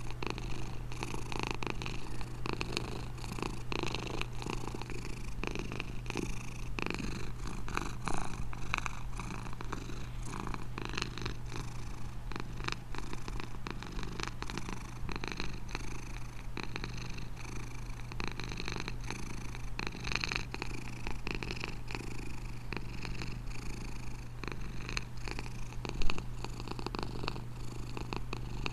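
Domestic cat purring steadily and close up, a continuous fast rattle of fine pulses. One brief louder sound stands out near the end.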